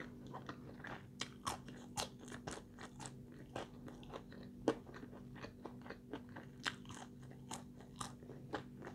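Close-up chewing of home-made French fries: irregular soft crunches and mouth clicks, a few each second. The fries crunch only lightly, not very crisp.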